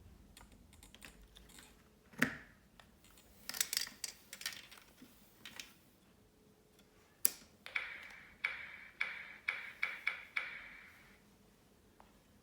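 A few scattered knocks and clicks, then, about seven seconds in, the kit's small speaker plays a bouncing-ball effect: a run of sharp electronic clicks with a beep, coming faster and closer together, for about three seconds.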